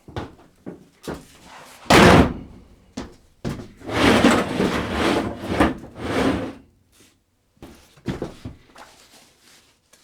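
Work noises in a van: scattered knocks, a loud bang about two seconds in, then a few seconds of scraping and rustling, and more knocks near the end.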